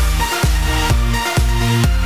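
Electronic dance music with a steady kick drum, a little over two beats a second, under held bass and synth notes.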